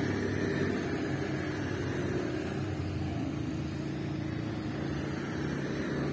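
Steady road traffic noise, with the low, even hum of motor vehicle engines running.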